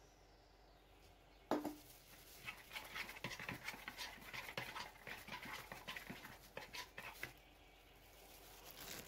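Metal spoon stirring a thin flour-and-water batter in a plastic bowl. A knock comes about one and a half seconds in, then a run of quick scrapes and taps for about five seconds.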